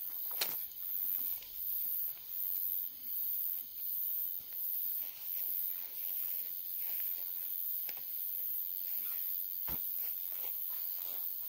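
High-pitched insect chorus, pulsing about one and a half times a second and then running steadier. A few sharp knocks and a heavy thump about ten seconds in.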